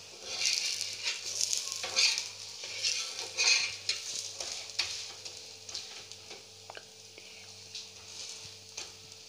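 Battered bottle-gourd slices sizzling in mustard oil on a hot tawa, with a spatula scraping and pressing them against the pan in short clicks. The sizzling comes in surges for the first few seconds, then settles to a lower, steadier hiss.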